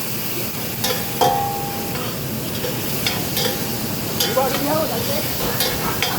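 Sliced onions, green chilies and tomato sizzling in hot coconut oil in a pan, with a steady hiss, while a spoon stirs and scrapes, knocking against the pan several times.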